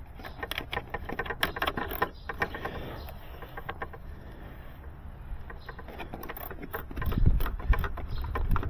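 Handling noise: a run of small clicks and rustles as cable and small fittings are worked by hand, busiest in the first few seconds. About seven seconds in, a low rumble joins, like wind on the microphone.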